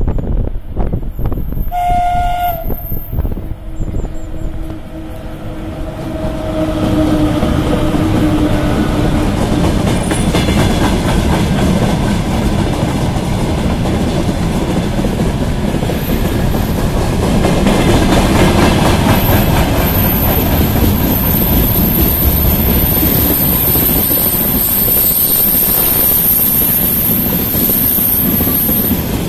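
VL80K electric locomotive hauling a heavy freight train gives a short horn blast about two seconds in. Then the loaded wagons roll past with a steady rumble and wheel clatter on the rails.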